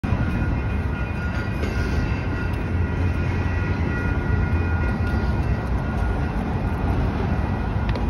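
Steady low rumble of outdoor urban background noise beside a street, with faint steady high tones over it.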